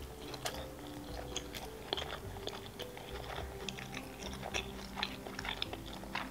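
Close-miked chewing of a mouthful of sushi roll with the mouth closed: many small, irregular clicks and soft crunches.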